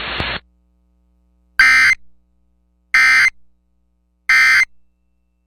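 Emergency Alert System end-of-message code: three identical short squawks of digital data tones about 1.3 seconds apart, which mark the end of the alert. Just before them, radio hiss under the warning cuts off sharply.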